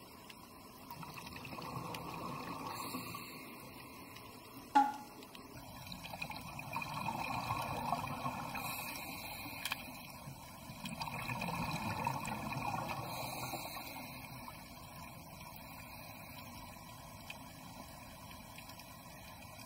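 Scuba diver's breathing underwater: three bubbling swells of exhaled air from the regulator, a few seconds apart, over a faint underwater hiss, with one sharp click about five seconds in.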